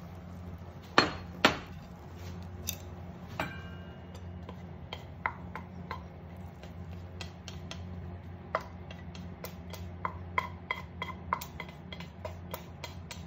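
Kitchenware knocks and clicks: two loud knocks about a second in as a plate and frying pan are set down on the glass induction cooktop. Then irregular light taps and clicks of wooden chopsticks against the pan and plate as fried noodles are pushed out of the pan. A steady low hum runs underneath.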